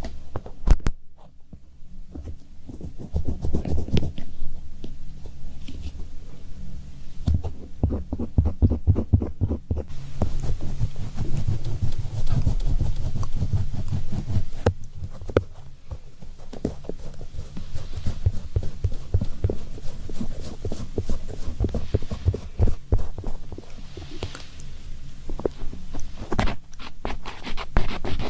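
Close-miked tapping, knocking and rubbing, many quick irregular knocks with dull low thuds over a steady low hum.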